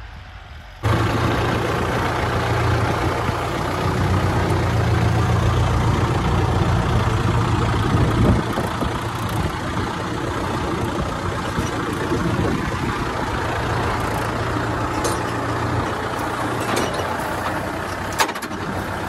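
Kubota MU4501 tractor's four-cylinder diesel engine running steadily under load as it pulls a stone-weighted frame leveller through tilled soil, heard close up from the driver's seat. Faint for the first second, then loud from about a second in, with a sharp click near the end.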